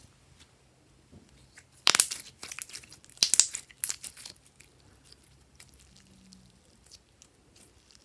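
Glossy slime being squeezed and folded by hand, crackling and popping with trapped air in two loud bursts about two and three and a half seconds in, then only faint scattered pops.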